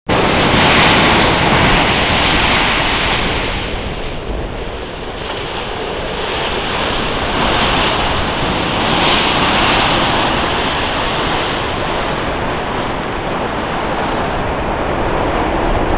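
Sea water rushing and washing, the level swelling and easing over a few seconds at a time, quietest about four to five seconds in.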